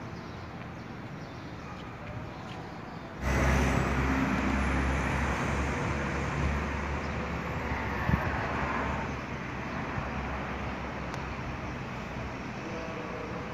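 Road traffic on a city street: a steady wash of passing cars with a low rumble. It jumps louder about three seconds in, stays loud for about six seconds, then settles lower.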